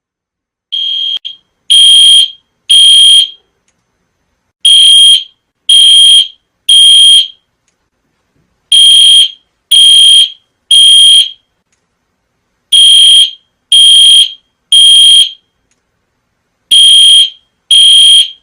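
Building fire alarm sounding a high beep in repeated groups of three, with a pause after each group: the three-beep evacuation signal.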